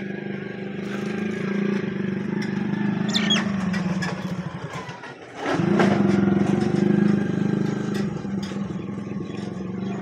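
An engine running steadily with a low hum, dropping away briefly about five seconds in and picking straight back up, with a few short bird chirps over it.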